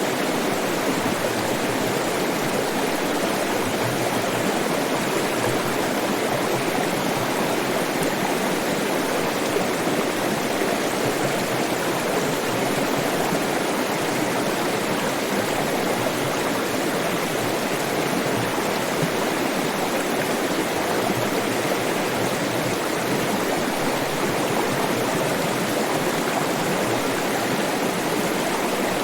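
Water flowing steadily in a stream, a constant rushing and burbling without pauses or changes.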